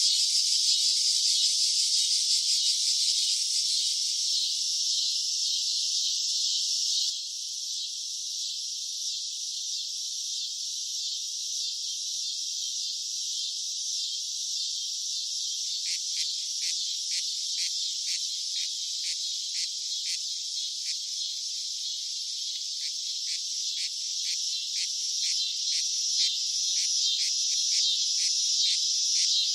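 Cicadas buzzing in a dense, high-pitched drone that shifts abruptly about seven seconds in. From about halfway a pulsing chirp of about two pulses a second joins the steady buzz.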